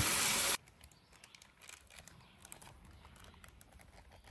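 Burger patties sizzling in a frying pan, cut off abruptly about half a second in, then near silence with a few faint clicks.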